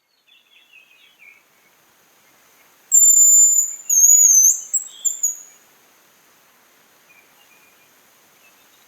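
Hazel grouse song: a very high, thin whistle, one long held note and then a quick wavering trill, starting about three seconds in and lasting a couple of seconds. Fainter chirps of other birds are heard before and after it.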